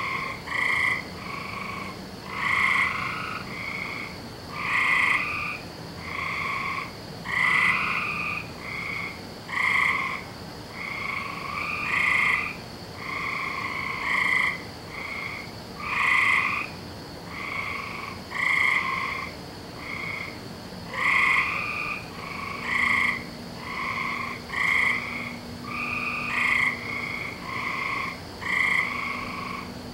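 A chorus of frogs croaking: short calls from several frogs overlapping in a steady run, one after another all through, over a faint steady high hum.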